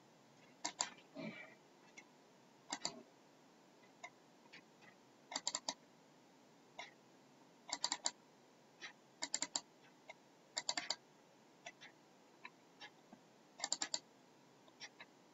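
Computer mouse and keyboard clicks: sharp clicks, mostly in quick pairs or triplets, every second or two.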